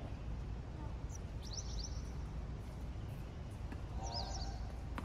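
Steady low outdoor background rumble with small birds chirping: a quick run of high, falling chirps about a second in and again near the end, and one sharp knock right at the end.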